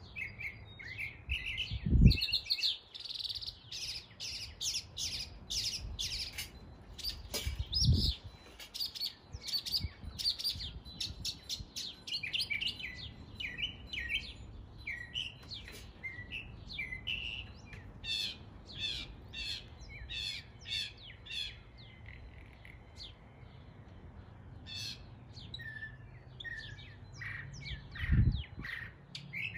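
Northern mockingbird singing a long, varied string of quick phrases, mimicking the calls of other birds. Three brief low thumps break in: the loudest about two seconds in, another about eight seconds in, and one near the end.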